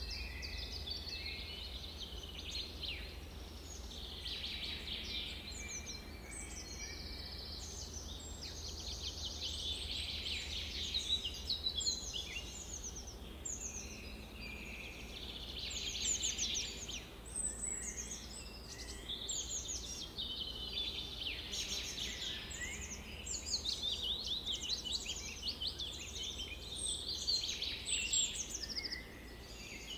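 A chorus of many songbirds singing at once, overlapping chirps and rapid trills without a break, over a faint low hum.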